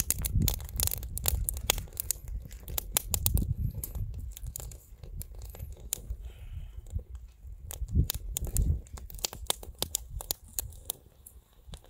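Something being torn by hand, with many quick sharp crackles and a few low thumps, growing quieter over the last couple of seconds.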